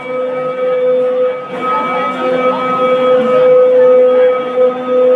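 One long, steady held call at an unchanging pitch, typical of the drawn-out shouted drill command at the Wagah–Attari border ceremony. It is heard over a large stadium crowd whose noise swells about a second and a half in.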